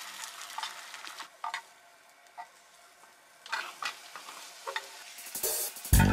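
Egg mixture sizzling faintly in a rectangular non-stick tamagoyaki pan while a plastic spatula scrapes and taps against the pan, rolling up the omelette. Loud music comes in near the end.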